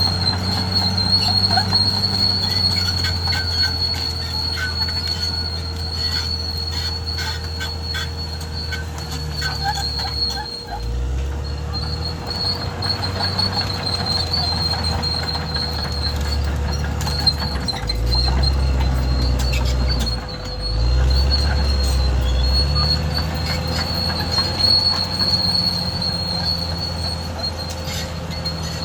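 Caterpillar D6R XL crawler bulldozer working: the diesel engine runs under load and its note drops and picks up several times, while the steel tracks keep up a steady high-pitched squeal.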